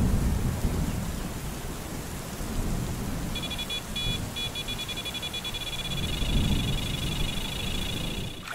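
Carp-style electronic bite alarm sounding a run. It gives a few short bleeps about three seconds in, then a continuous fast warbling tone, over a steady low rumbling noise.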